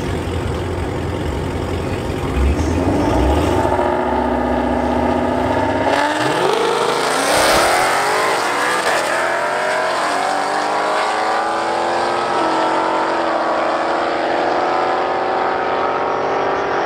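Two drag cars, a Dodge Challenger and a Mustang, running at the starting line with a brief rev about two and a half seconds in, then launching about six seconds in: the engine notes climb steeply and drop back at each upshift as the cars pull away down the strip.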